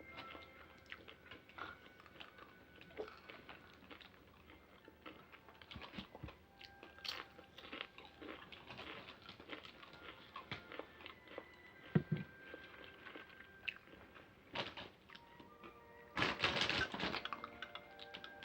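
Close-up crunching and chewing of hard-shell tacos, with scattered bites and a louder run of crunching near the end.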